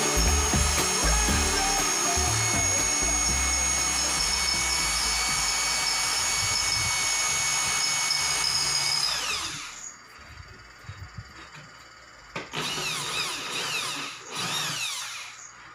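Corded electric drill boring into an aluminium track, running at a steady whine under background music for about the first nine seconds, then winding down. After a short pause it runs again for a couple of seconds, its pitch rising and falling as the speed changes.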